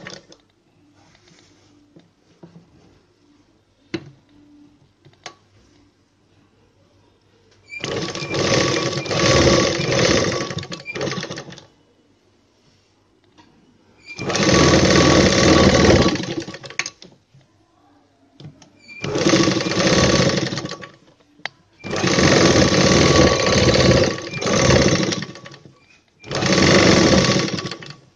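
Sewing machine stitching a seam in five short runs of two to four seconds each, starting about eight seconds in, with brief pauses between runs. Faint clicks of handling come in the quiet first part.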